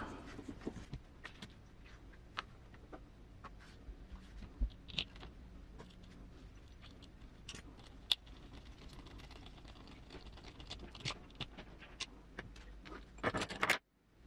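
Small parts of an RC car kit being handled: scattered light clicks and taps, with a brief louder scrape near the end that cuts off abruptly.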